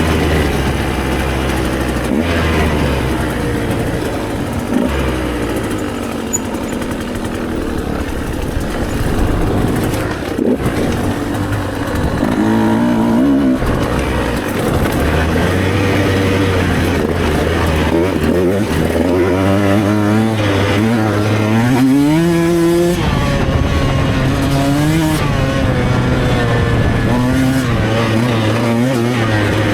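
Enduro motorcycle engine running under riding, revving up and down repeatedly as the throttle opens and closes, with a long climb in pitch a little after two-thirds of the way through.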